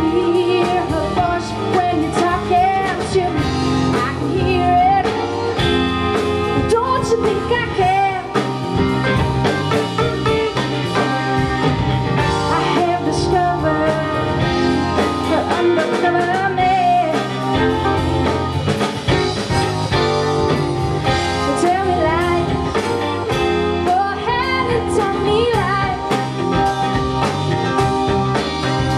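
Live band music: a woman sings lead over strummed acoustic guitar, electric guitar and a drum kit, in a blues-rock style.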